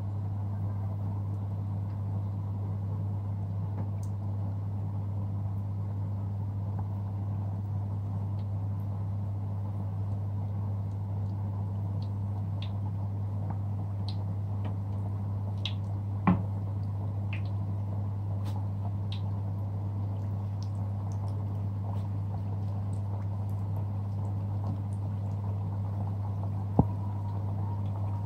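Samosas deep-frying in hot oil, the oil bubbling with scattered faint pops and crackles over a steady low hum. Two sharp clicks stand out, one about sixteen seconds in and one near the end.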